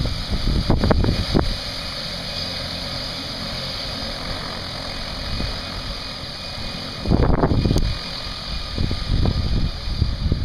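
Turbine engine and propeller of a turbo de Havilland Otter floatplane running steadily as it taxis away on its floats. Gusts of wind buffet the microphone in the first second or so and again about seven seconds in.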